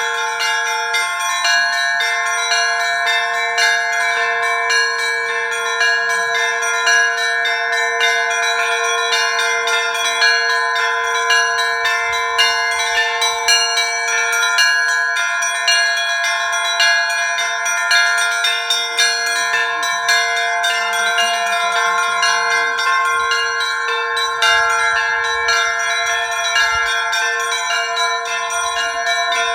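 Russian Orthodox church bells rung together in a continuous, rapid peal, with many bells struck in quick succession over a steady ringing low bell.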